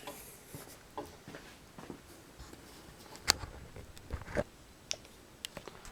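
Faint scattered handling noises: soft rustles and a few clicks, the sharpest about three seconds in.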